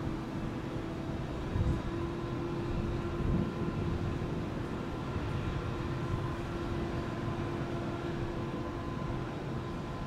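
Steady low rumble of vehicle noise with a constant humming tone running through it.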